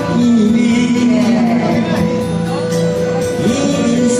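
Music with a singing voice holding long, sliding notes over a steady accompaniment.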